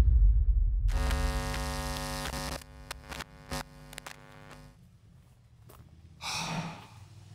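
Electronic intro sound effects: a deep boom fading out, then a buzzing electrical hum for about a second and a half, a few sharp clicks, and a short whoosh near the end.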